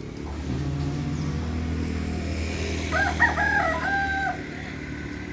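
A rooster crowing once, about three seconds in, jagged at first and then held on one note. Under it a low steady hum stops suddenly just after four seconds.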